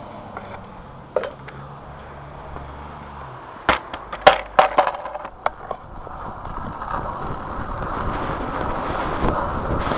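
A few sharp knocks and clacks about four to five seconds in, then Landyachtz Dropspeed longboard wheels rolling on asphalt, the rolling noise growing steadily louder as the board picks up speed.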